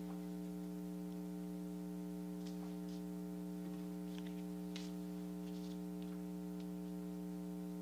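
Steady electrical hum made of several even tones. A few faint, brief scratches of a colored pencil on paper sound over it.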